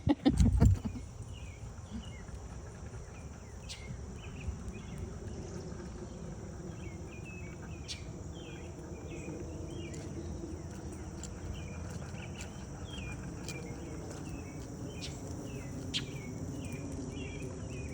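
Insects drone steadily in a high band, with short chirps repeating throughout. A loud low thump hits the microphone in the first second.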